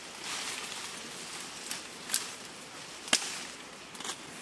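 Leaves and undergrowth rustling as a person pushes through dense brush, with a few sharp cracks of stems or twigs. The loudest crack comes about three seconds in.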